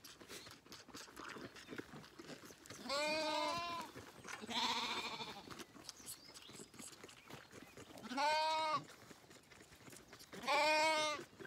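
Zwartbles lambs bleating four times, each a short, wavering bleat, while they crowd in for bottle-feeding.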